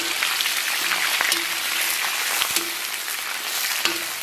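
Scallions and ginger sizzling in hot oil and caramelised sugar in a wok, a steady dense crackle as they are stir-fried with a spatula.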